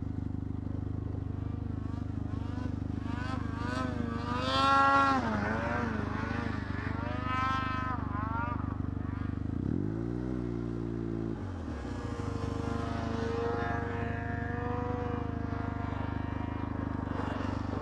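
Snowmobile engines: the rider's own Arctic Cat F1100 Turbo runs with a steady drone underneath, while the engine pitch swells and falls several times as the sleds rev on the descent. The loudest swell comes about five seconds in, and there is a short, deep rev about ten seconds in.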